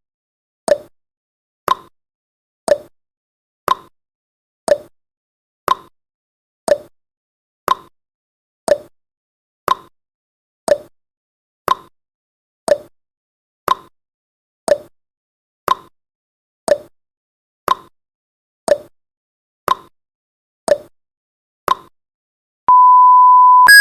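Countdown timer sound effect: a clock-like tick-tock once a second, alternating higher and lower clicks, followed about a second before the end by a long steady beep as the countdown runs out.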